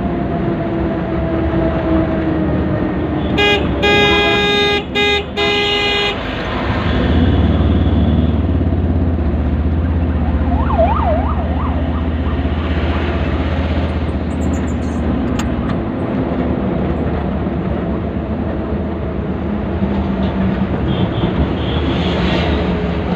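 Road traffic with a steady rumble of vehicles. A vehicle horn honks in a few quick blasts a few seconds in, and a brief, fainter warbling tone comes near the middle.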